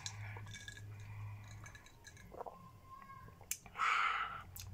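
Faint sipping of iced water through a plastic straw, with a few light clicks about three and a half seconds in and a short breathy sound near the end.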